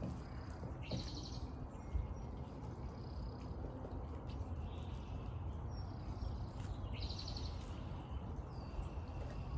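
Birds calling outdoors: a short, quick trilled call about a second in and again about seven seconds in, with fainter brief chirps between, over a steady low background rumble.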